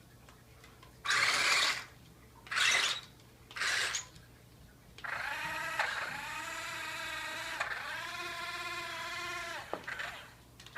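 Electric drive motors and gearbox of a remote-control airsoft tank. Three short whirring bursts come in the first four seconds, then a longer pitched motor whine lasts about five seconds; it rises as it starts and dips briefly twice.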